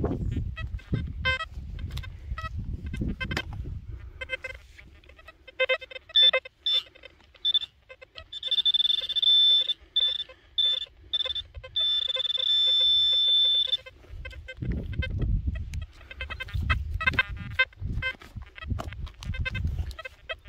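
Handheld metal-detecting pinpointer probed in loose soil, giving a high-pitched beep in quick pulses that run together into a steady tone in places as it closes on a metal target. Before and after the beeping come low scraping and knocking sounds of digging in the earth.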